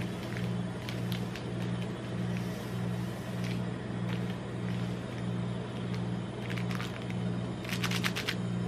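Plastic candy-bar wrappers crinkling with light taps as Snickers bars are shuffled on a stainless-steel cold plate. The loudest part is a short burst of wrapper crackle about eight seconds in, as one bar is picked up to be opened. A steady low hum with a regular pulse runs underneath.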